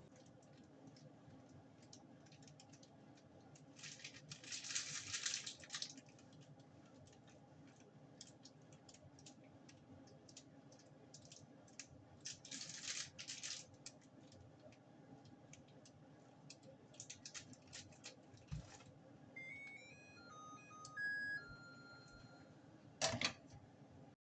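Faint scattered clicks and knocks with two brief hissing rustles, then a short run of electronic beeps and one sharp click near the end.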